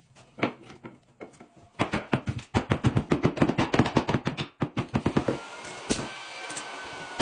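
A rapid run of sharp taps or knocks, several a second and bunched tightly for about three seconds, from work on a solid wood floor. A faint thin whine comes in near the end.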